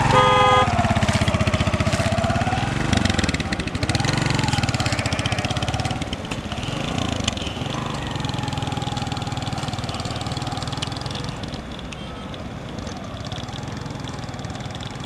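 Motorcycle engine running and pulling away, its pitch rising and falling as it is revved, then steadily fading as the bike rides off.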